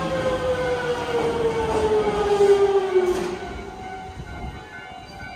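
Electric train braking into a station, its traction-motor whine falling steadily in pitch, then dying away about three seconds in as the train slows to a stop, leaving fainter running noise.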